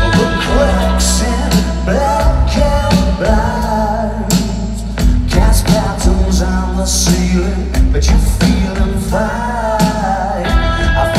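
Live rock band playing electric guitars, drums and keyboards, with singing, heard from within the concert crowd.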